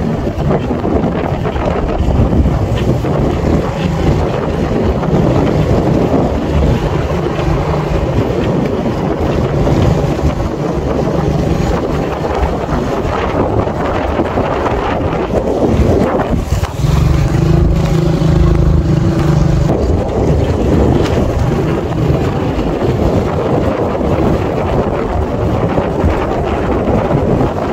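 Motorcycle engine running at a steady road speed under heavy wind noise on the microphone. The engine's note stands out more clearly for a few seconds past the middle.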